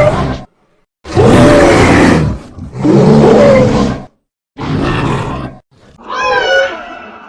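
Roars of the Ivyceros, a cartoon creature: a roar that ends half a second in, then three more deep roars, each about a second long with short gaps between them. Near the end comes a higher call that rises and then falls in pitch.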